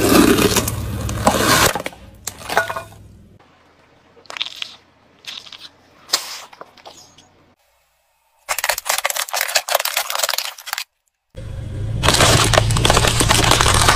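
A car tyre rolling over and crushing plastic objects in a run of short cuts: loud crunching and cracking near the start, scattered single cracks and pops, a brief silence, then dense crackling crunches again toward the end.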